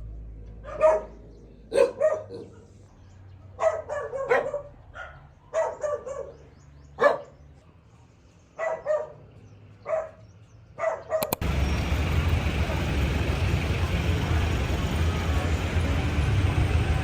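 A dog barking repeatedly, single and double barks, for about eleven seconds; then the sound cuts suddenly to a steady low rumble.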